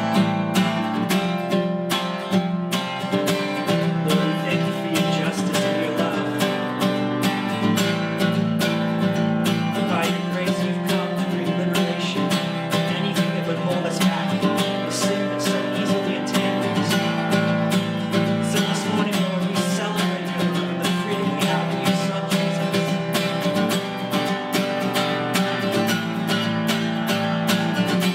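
Acoustic guitar strummed in a steady rhythm, playing a worship song.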